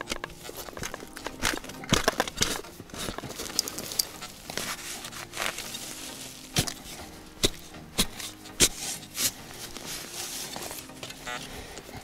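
Shovel blade chopping and scraping into forest soil and dry leaf litter while digging out a metal-detector signal. It is a string of sharp, irregular strikes with leaves crackling in between.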